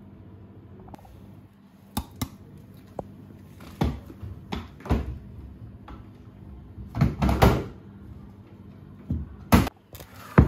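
Kitchen handling sounds: a series of sharp knocks and clunks spread through, with a louder cluster of clatter about seven seconds in and another sharp knock near the end.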